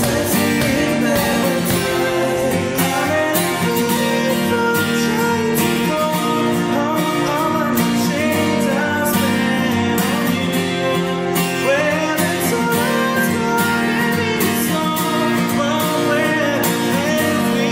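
Acoustic guitars strumming steadily while a male voice sings a pop melody, in a live acoustic band performance.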